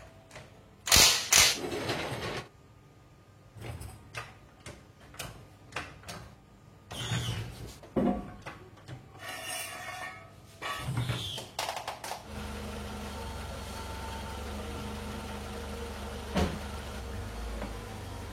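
Two loud knocks about a second in, then a run of lighter knocks and clatters of work on the car. From about twelve seconds in, the 1998 Honda Civic Ferio's engine runs steadily at idle, with one sharp knock near the end.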